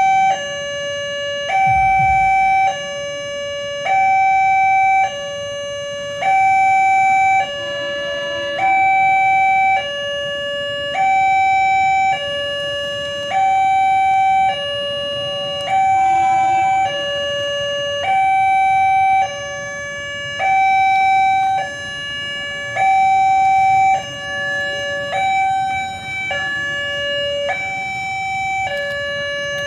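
Railway level-crossing warning alarm sounding a steady alternating two-tone signal, a higher tone then a lower one, each about a second long, repeating. The alarm warns that a train is approaching the crossing.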